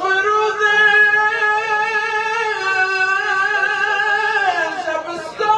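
A man's singing voice holding one long note of a chanted Persian devotional poem, steady in pitch with a slight waver for about four seconds, then sliding down and breaking off near the end.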